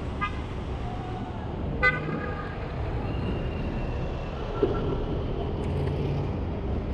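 Road traffic running steadily, with a short car horn toot about two seconds in and a fainter toot near the start.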